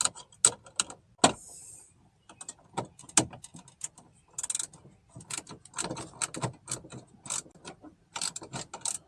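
Irregular metal clicks and clinks as a bolt is worked into the new power window motor mounted on the window regulator inside the door, with a few harder knocks among the light ticks.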